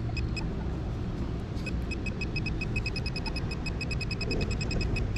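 Metal-detecting pinpointer beeping in short, rapid pulses, about four a second, as it is probed into the dig hole. The repeating beeps show the target is still in the hole. A steady low rumble runs underneath.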